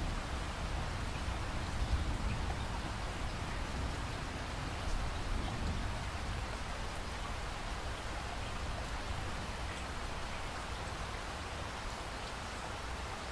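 Steady rain falling, an even hiss of many drops. A low thunder rumble fades away over the first half.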